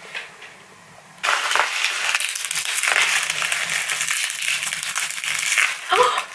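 Clear plastic packaging crinkling and crackling as it is handled and pulled open by hand, starting suddenly about a second in and going on for about four and a half seconds. A short vocal exclamation comes near the end.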